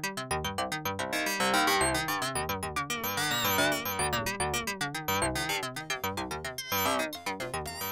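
Waldorf Blofeld synthesizer playing wavetable patches as a rhythmic, sequenced pattern of short notes over a bass line, recorded dry with only the synth's internal effects. The pattern changes as a new sound comes in at the start.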